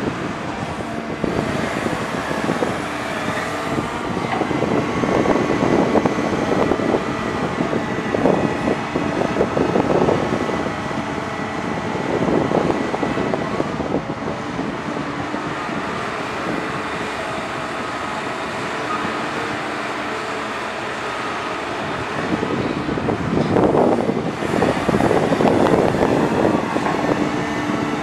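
Caterpillar 320D hydraulic excavator's diesel engine running steadily with a thin whine as the machine digs. Twice the sound swells for several seconds as the boom and bucket work under load, once early in the stretch and again near the end.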